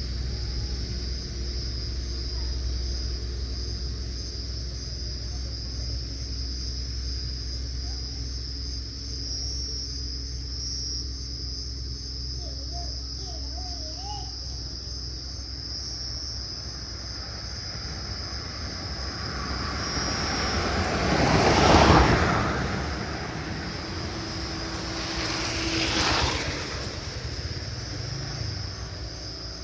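Night ambience of insects chirping steadily over a low hum. About two-thirds through, a loud rushing rumble swells and fades, and a smaller one follows some four seconds later.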